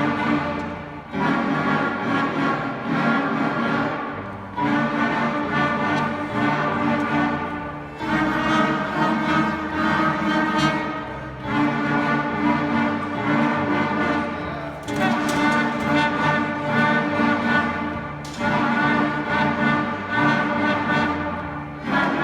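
School string orchestra of young players playing together. The music goes in repeated phrases of about three and a half seconds, each starting with a fresh, loud attack.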